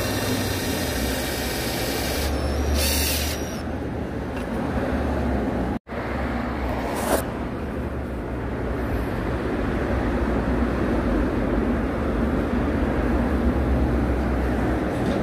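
Electric drill motor running with a steady whine for about two seconds. After an abrupt cut, a steady low rumbling noise.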